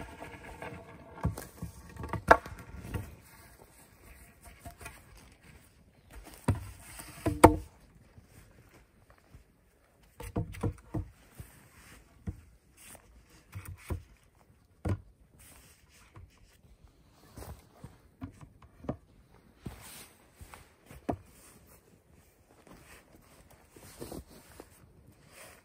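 Wooden poles and logs knocking and thudding against each other, with rustling on the forest floor between them. The sharpest knock comes a little after seven seconds.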